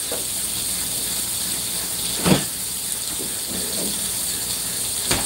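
Mahi mahi fillets sizzling in oil in a frying pan, a steady hiss. A sharp knock comes about two seconds in and another near the end.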